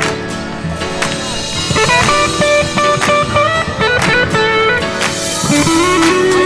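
Background music: an instrumental track led by guitar over a steady beat.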